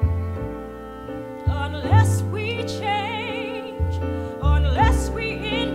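Musical theatre song: instrumental accompaniment of held chords and low bass notes, joined about a second and a half in by a woman's voice singing long held notes with wide vibrato.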